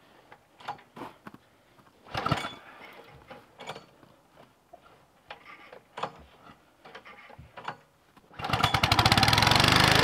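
Scattered small clicks and knocks as the Huskee log splitter's small gas engine is readied. About eight seconds in, the engine catches on a pull of its starter and runs steadily and loudly: a cold start after sitting unused all winter.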